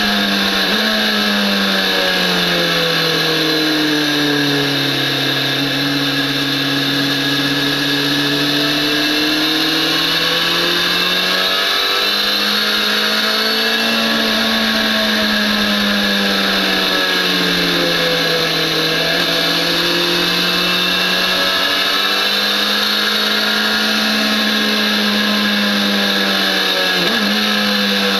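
BMW S1000RR inline-four motorcycle engine on track, heard from the bike itself under heavy wind rush. The engine pitch sinks and climbs several times as the revs change through the corners, with a quick sharp flick in pitch near the end.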